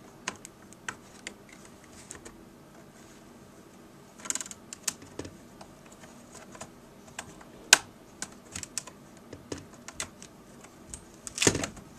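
Scattered small clicks and taps of a laptop LCD panel and its plastic frame being handled and set into place, with a sharper click about eight seconds in and two short scraping rustles, about four seconds in and near the end.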